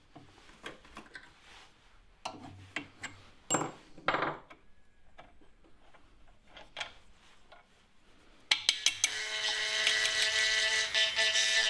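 Scattered light clicks and scrapes of loose metal swarf being moved around the vise. About eight and a half seconds in, after a few sharp clicks, a handheld rotary tool starts up with a steady high whine as its burr bit roughens the surface of the broken cylinder-head lug.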